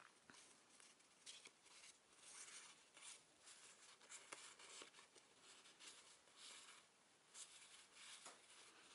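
Faint rustling of paper cards and handmade papers sliding against each other as a stack is fanned out in the hands: a run of soft rustles, each about half a second, with a few small clicks.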